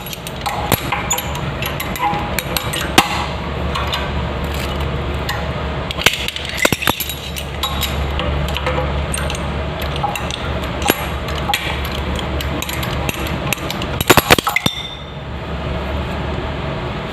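Tools and metal plumbing fittings clicking and clinking as a toilet's water-supply connection is taken apart, over a steady low hum. A quick cluster of loud sharp knocks comes near the end.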